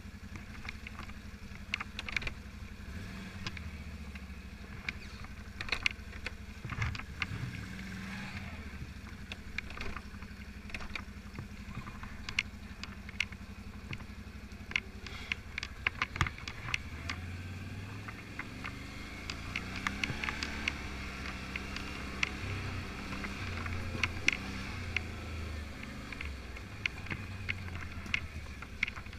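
Quad bike (ATV) engine running at low speed, its hum rising and falling with the throttle, stronger in the second half. Frequent sharp clicks and knocks from the machine jolting over rough ground.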